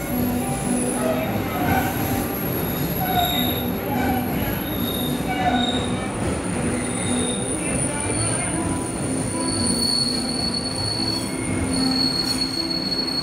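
MBTA Blue Line subway train pulling into the station, its wheels squealing in several held high tones over a steady rumble.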